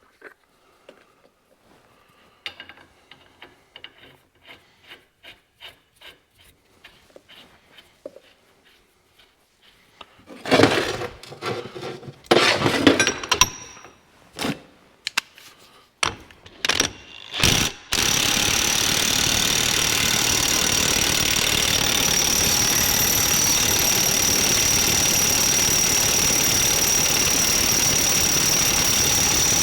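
Faint regular clicks at first, then a run of loud clanks and short bursts about ten seconds in. For the last twelve seconds a power tool runs steadily, with a constant high whine.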